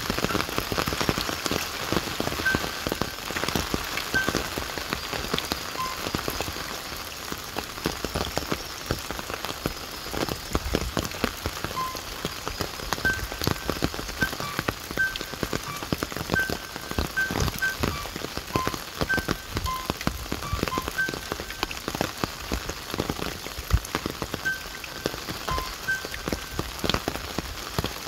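Steady rain falling, a dense patter of many small drops, with short high notes at two pitches dotted irregularly through it.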